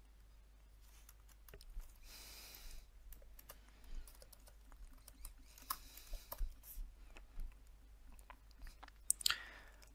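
Faint, irregular computer keyboard typing and clicks, with a short soft hiss about two seconds in.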